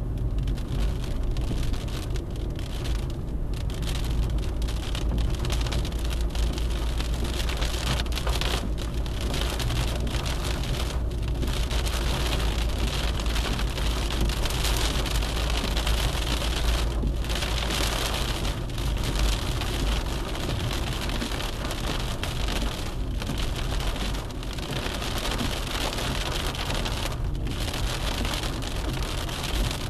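Car driving on a road, heard from inside the cabin: a steady low engine and road rumble under a hiss of tyre and wind noise, the hiss dipping briefly now and then.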